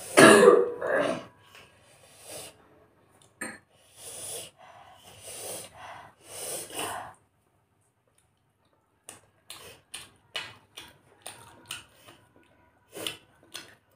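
Close-miked sounds of a person eating steamed momos: a loud breathy mouth sound at the start, then wet chewing and smacking, a short pause, and a quick series of sharp lip-smacking clicks in the last few seconds.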